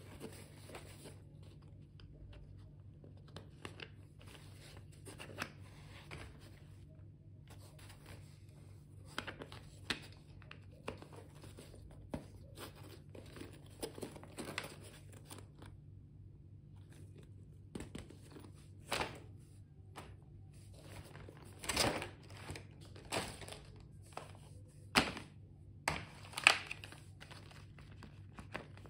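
Plastic packaging crinkling and rustling as stationery is handled, with irregular short crackles that grow sharper and louder in the last third. A faint steady low hum lies underneath.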